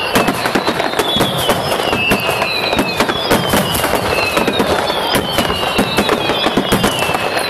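Aerial firework shells bursting: a dense, continuous run of bangs and crackles. Over them a high whistle falls in pitch, repeating about once a second.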